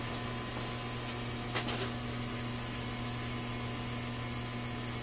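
Room tone: a steady low electrical hum with hiss, and one faint click about a second and a half in.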